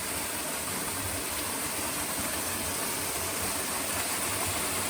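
Steady rushing of a waterfall: an even hiss of falling water with no breaks.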